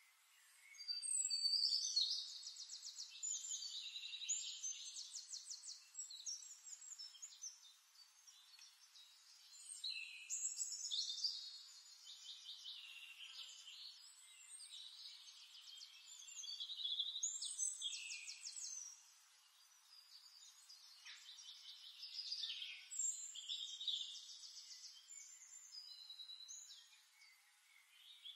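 A songbird singing in long phrases of rapid high trills and chirps, with short pauses between the phrases.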